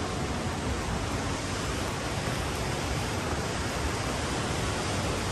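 Steady rush of water over rocks, an even hiss with no breaks.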